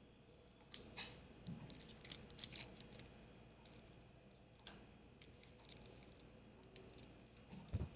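Scattered small sharp clicks and light scrapes of tools and small parts being handled while a Swatch watch's battery is replaced, with a soft low thump near the end.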